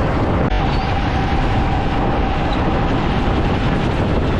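Steady road traffic noise with wind rumbling on the microphone, and a faint steady tone for most of it.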